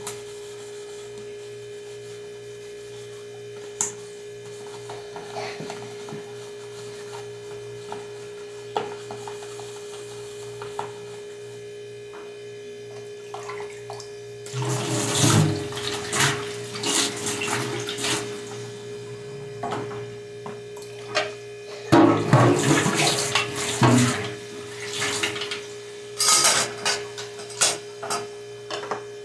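Washing up at a kitchen sink: plastic food containers are scrubbed and handled with small knocks, then tap water runs and splashes in spells from about halfway on. A steady electrical hum sits under it all.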